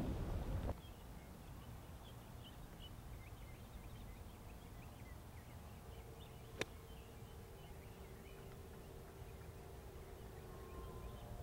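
Wind buffeting the microphone, cut off under a second in. Then faint outdoor ambience with scattered bird chirps and a low steady hum. About six and a half seconds in comes one sharp click: a golf club striking the ball.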